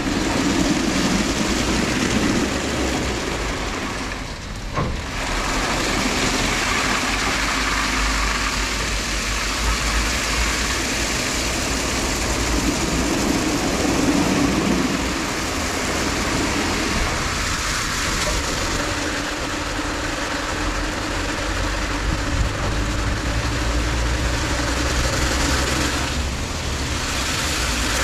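Christ Cadis C17 rollover car wash in its brush polishing stage: the rotating wash brushes and machine run against the car with a steady, loud mechanical wash noise over a low hum. It dips briefly about four and a half seconds in.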